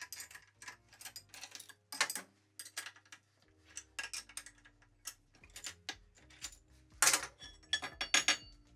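Metal clinks and knocks of steel being handled on a milling machine table: a wrench working a hold-down clamp and a steel part being moved, a string of short sharp knocks, loudest about two seconds in and near the end. Faint background music underneath.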